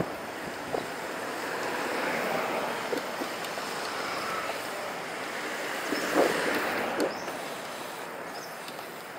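Steady rush of wind and tyre noise from a moving bicycle, picked up by a handlebar-level action camera, with a few small knocks and rattles, the loudest about six seconds in.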